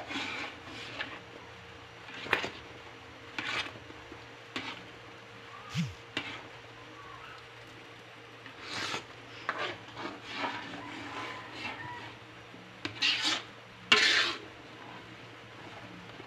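Metal spatula stirring thick maja blanca pudding in a metal pan, scraping the pan's bottom and sides in irregular strokes; the mixture is thickened and nearly cooked.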